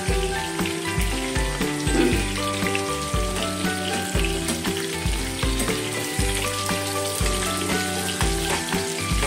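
Stuffed bitter gourds (bharwa karela) sizzling as they fry in oil in a steel kadhai, with a ladle turning them now and then. Background music with a steady bass beat plays throughout.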